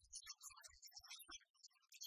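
Faint handling noise: light rustling and scattered small clicks as something is handled out of sight, with a few soft low thumps in the first second and a half.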